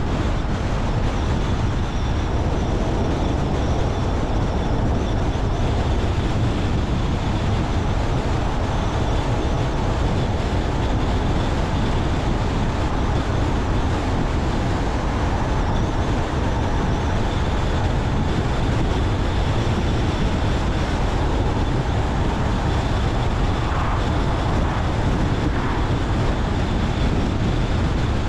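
Steady road noise of a car driving at a constant pace: low tyre and engine rumble with no change in speed, and a faint steady high whine.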